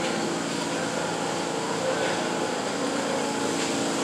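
New York City subway car standing at the platform, its air-conditioning and on-board equipment giving a steady hum with several held tones.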